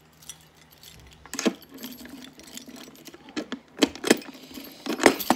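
Keys jangling and sharp metal clicks and knocks as a key-locked lockbox is shut and locked, the loudest knocks coming in the last second and a half.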